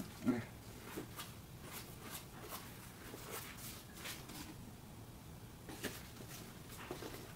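A Louis Vuitton messenger bag handled by white-gloved hands: faint rustling with light, scattered ticks and taps as the flap and strap are moved.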